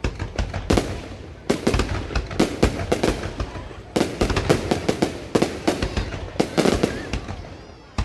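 Fireworks going off in quick volleys of sharp bangs, clusters of several explosions following one another about every second.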